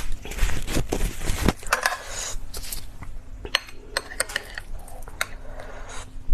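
Eating utensils clicking and clinking against dishes, in a scatter of short sharp taps with some rustling.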